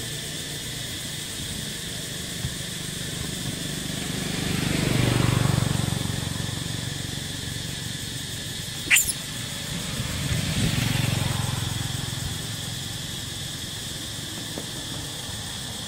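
Roadside ambience: a steady insect drone over a low hum, with a vehicle passing about five seconds in and again about eleven seconds in. A single sharp knock sounds about nine seconds in.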